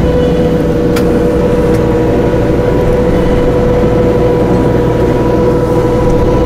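A truck engine running steadily at idle, with a steady hum held on one pitch throughout. A single sharp metal clink about a second in.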